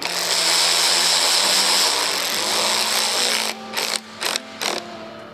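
Cordless 12-volt ratchet running steadily for about three and a half seconds, then several short bursts as it drives a mounting bolt on the LED pod light bracket.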